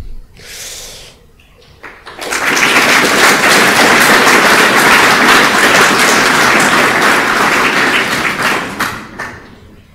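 Audience applauding: the clapping starts about two seconds in, holds steady, and dies away near the end.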